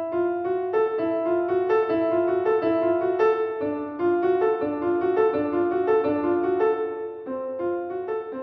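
Piano music: a steady run of single notes in an even rhythm, growing quieter in the last second or so.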